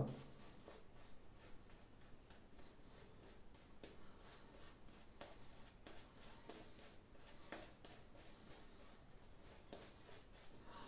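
Omega 10065 shaving brush working soap lather on a face, quick soft brushing strokes about three a second.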